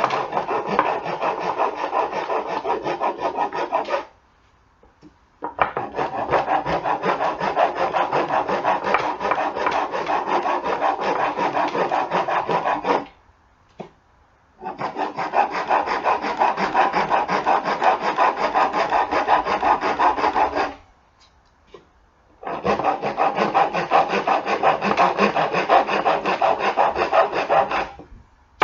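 Hand rasp scraping a wooden lamp-stand part in fast back-and-forth strokes to shape it round. The rasping comes in four long runs broken by three short pauses.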